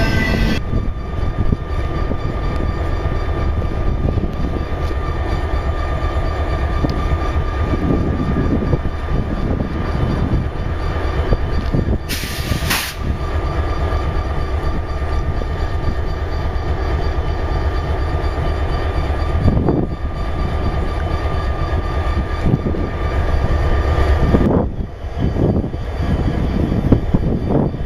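Idling EMD diesel locomotives, a CP Rail SD60 and an SD40: a steady low engine rumble with a constant hum, the sound shifting abruptly a few times.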